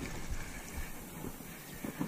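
Wind rumbling on the microphone and dying down, with a few faint low thumps.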